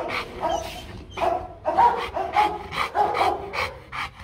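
Rottweiler panting hard in quick short breaths, about four a second, with short whines and half-barks voiced among them.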